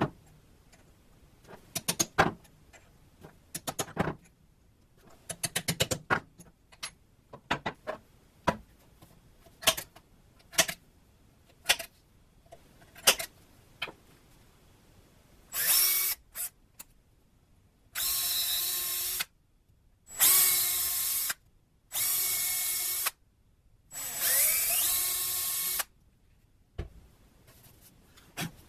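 A series of sharp taps, a mallet striking a punch to mark screw holes. In the second half a handheld power drill runs in five short bursts, drilling the screw holes into a wooden fixture box.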